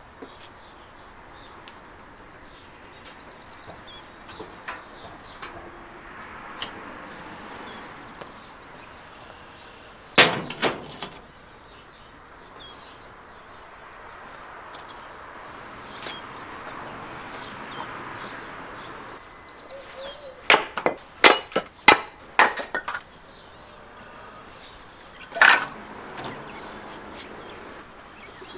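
Dry brushwood and kindling sticks being handled, with a sharp crack about ten seconds in, a quick run of cracks and knocks around twenty seconds, and another knock a few seconds later.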